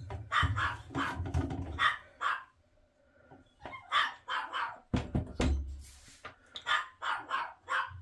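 Dog barking in quick runs of short barks, with a pause of about a second partway through.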